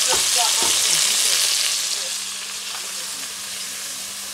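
Sliced seasoning vegetables and thyme sizzling in hot oil in a wok while being stirred. The sizzle eases a little about two seconds in.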